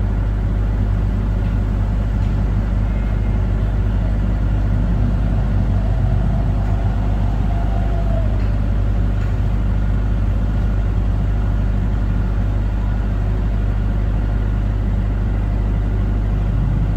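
Soundproofed Isuzu diesel generator set (IP25, 25 kVA) running steadily, its in-line four-cylinder four-stroke engine giving a constant low drone with no change in speed.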